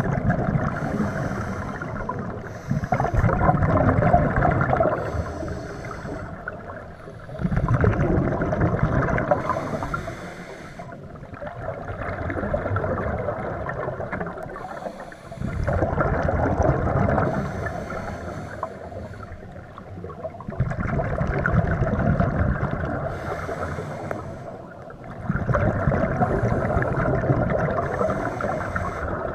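Scuba diver breathing through a regulator underwater: a slow, even rhythm of bubbling exhalations, one every four to five seconds, each lasting two or three seconds, with quieter gaps for the inhale between.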